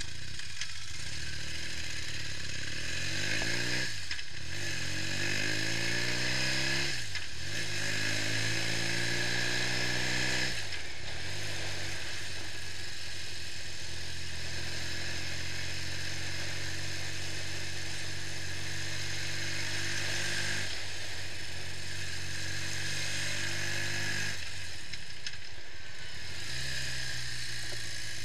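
BMW R65's air-cooled flat-twin engine on the road, revs climbing through the gears with three quick upshifts in the first ten seconds. It then holds a steady cruise, with brief drops in revs about two-thirds of the way through and again near the end. A steady hiss runs above the engine.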